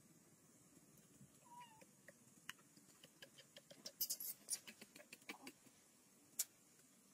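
A faint short squeak from a young macaque about one and a half seconds in, followed by a run of light crackles and clicks, loudest in a cluster about four seconds in and in one sharp click near the end, over near silence.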